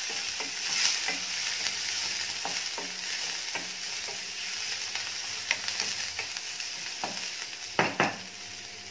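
Chopped onion, garlic and curry leaves sizzling in oil in a metal kadhai, stirred with a wooden spatula that scrapes and knocks against the pan at irregular intervals, with two louder knocks near the end. The onion is being fried until soft for the tempering.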